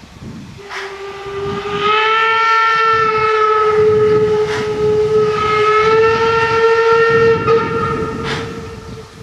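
Steam locomotive whistle blowing one long blast of about eight seconds, its pitch rising slightly at the start. The rumble of the approaching train runs underneath.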